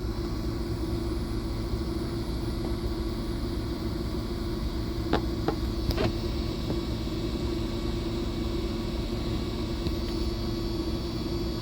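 New Delphi electric fuel pump in a 2002 Buick LeSabre running with a steady, quiet hum, heard close up over the car's idling engine. A few faint ticks come about five to six seconds in.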